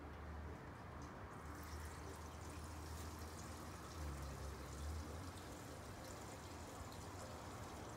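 Gasoline pouring from a small fuel can into an engine's fuel tank: a faint, steady trickle, over a low background hum.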